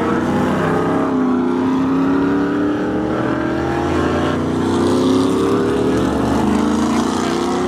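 Vintage open-wheel single-seater racing cars' engines at full throttle as they pass, the engine note climbing steadily in pitch as they accelerate out of the corner, with more than one car heard at once.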